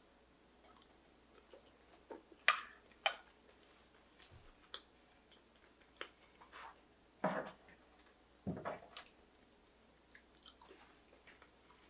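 Close-miked chewing of a mouthful of baked mac and cheese with a phyllo-pastry topping: wet mouth sounds and scattered crackly clicks. The sharpest come about two and a half and three seconds in.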